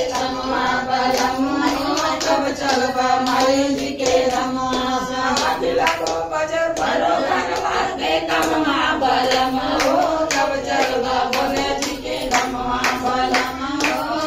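Women singing a Hindi Shiva bhajan, carried along by steady handclaps keeping time.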